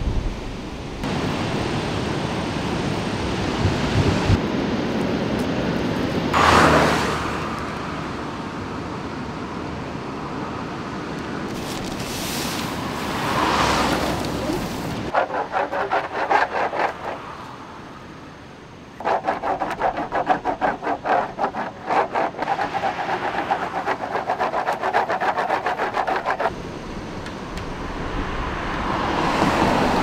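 Cars passing on a road, each one swelling and then fading, three times. In between there is a stretch of quick, evenly repeated ticking or rubbing.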